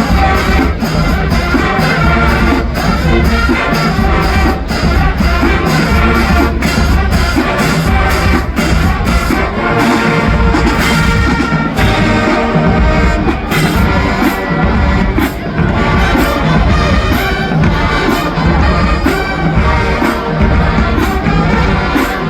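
Marching band playing: brass, with trumpets and trombones, over a steady drum beat.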